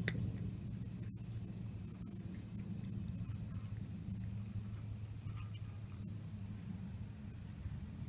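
A cat eating dry kibble from a bowl: faint crunching and chewing over a steady low hum and a steady high hiss.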